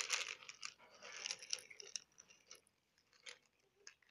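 Cats crunching dry kibble: a dense run of crunches for about two seconds, then a few scattered crunches.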